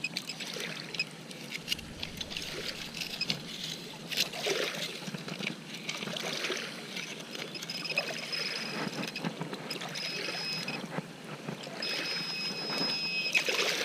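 Water trickling and splashing with many small knocks, as a sand scoop is dug and sifted in shallow water after a shallow metal-detector signal. In the second half, the metal detector's steady high tone sounds several times.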